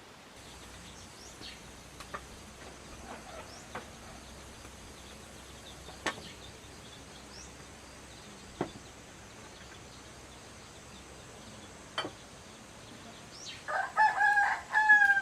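A chicken calls loudly near the end: a few short notes, then a longer note falling slightly in pitch. Before that, a few light clicks sound over a faint steady background.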